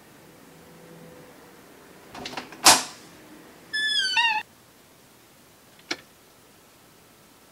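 A door latch clicking sharply, then a short, high, wavering squeak lasting under a second; another single click near the end.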